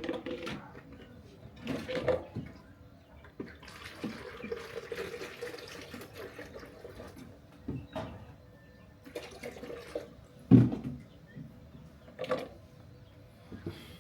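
Water running or being poured for a few seconds, among scattered knocks and clatters; the loudest knock comes past the middle.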